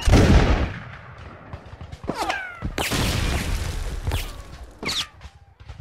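Battle sound effects of musket fire: a loud shot with a long rolling tail at the start, then scattered shots and a longer burst of volley fire, with short falling-pitch sounds between the shots.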